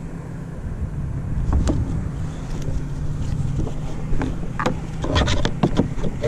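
Wind rumbling on the microphone over a faint steady low hum, with scattered light clicks and then a quick run of clicks and knocks over the last couple of seconds as a flexible plastic measuring rule is handled and bent against the plastic kayak hull.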